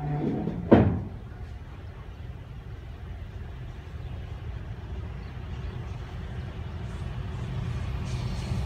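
GE U20 diesel-electric locomotive approaching. It gives a short, loud horn blast in the first second, then its engine rumbles steadily and slowly grows louder as it nears.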